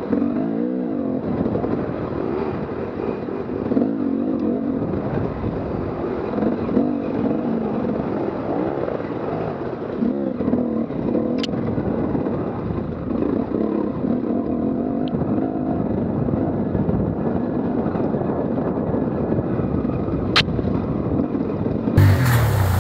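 Dirt bike engine running continuously while riding a rough forest trail, heard from on the bike, its pitch rising and falling as the throttle opens and closes. Two brief sharp knocks, one about halfway and one near the end, and in the last second the sound cuts to a deeper, louder engine.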